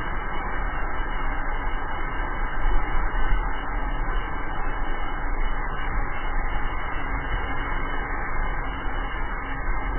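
Steady wind rush buffeting the camera microphone, mixed with wheel and road rumble from a drift trike coasting downhill on asphalt.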